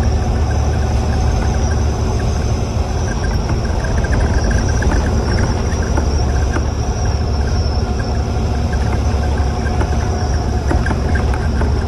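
Bus engine and cabin noise heard from inside the passenger cabin: a steady low drone with a faint high whine above it.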